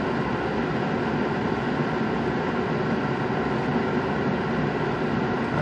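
Steady rain falling on a pickup truck's roof, heard from inside the cab as an even, unbroken hiss.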